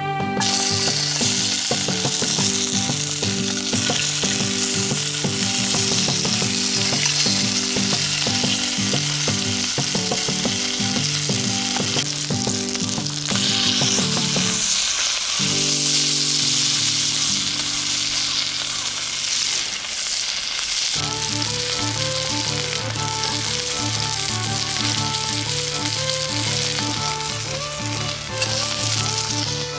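Chicken wing drumettes frying in hot olive oil in a cast-iron Dutch oven. A loud, steady sizzle bursts up as the meat hits the oil at the start and keeps on as it browns.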